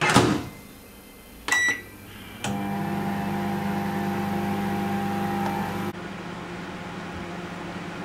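Black Beauty microwave oven being restarted. A thump as the door is shut, a short keypad beep about a second and a half in, then the oven starts a cooking cycle about a second later with a steady electrical hum. The hum drops in level about six seconds in and keeps running.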